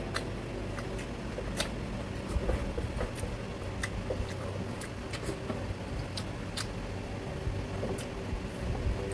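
Irregular sharp clicks and taps of wooden chopsticks on a wooden tray, along with eating and mouth sounds, while scraps of noodles are picked up and eaten. A steady low hum runs underneath.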